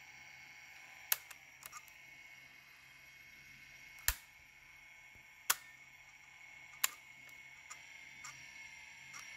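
The small motor of a Sony WM-F15 Walkman cassette player runs with a steady whine while driving nothing, because its rubber drive belt has, by the owner's reckoning, perished. Several sharp plastic clicks from the mechanism being handled are louder than the whine.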